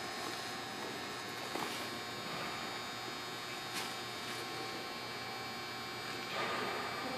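Steady electrical hum, with a few faint knocks and, near the end, a rise in rustling handling noise.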